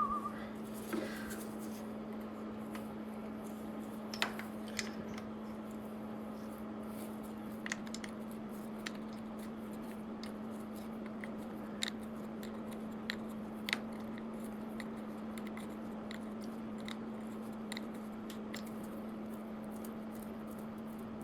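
A few scattered, short metallic clicks and taps of hand tools working the exhaust-manifold nuts on an engine, over a steady low hum.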